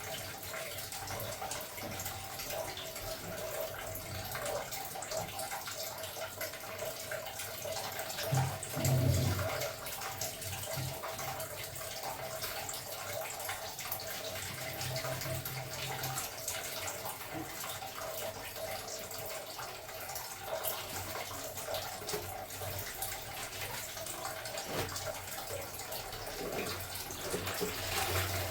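Water running steadily, with a low thump about eight seconds in.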